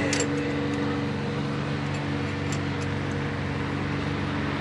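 A steady mechanical hum with several held tones, and a few light metallic clicks of hand tools about the valve gear, near the start and again about two and a half seconds in.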